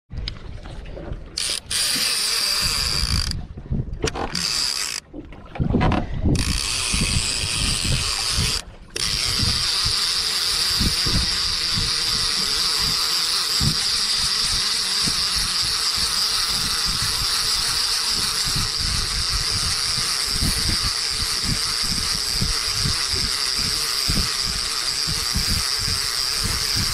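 Conventional fishing reel being cranked by hand, its gears whirring as a hooked fish is reeled in. It is stop-start for the first several seconds, then a steady, even whirr.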